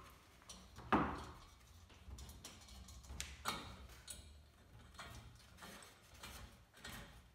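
Light metal clicks and taps of an adjustable wrench and check valve tool working against a lantern's pump tube while the check valve is tightened back in, the loudest knock about a second in and fainter ticks every second or so after.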